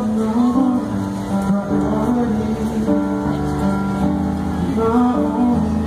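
Grand piano playing, with chords and melody notes over held low bass notes.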